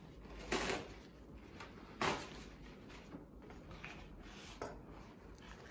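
Paper towels being pulled from a large roll and torn off, heard as three short papery rustles.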